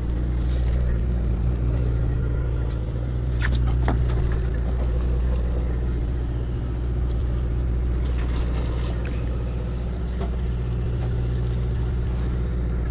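Steady low drone of the sportfishing boat's diesel machinery running, with a few scattered light clicks over it.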